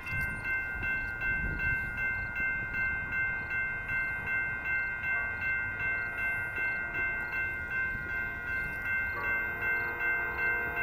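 Railroad grade-crossing warning bell ringing steadily, about two strokes a second, as a train approaches. About nine seconds in, a lower sustained chord joins: the approaching train's horn sounding for the crossing.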